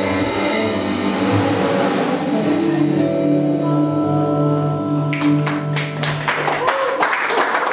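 A live ensemble with trombone, tenor saxophone, vibraphone, double bass, piano and drums holds long sustained notes at the close of a piece. About five seconds in, the audience breaks into applause.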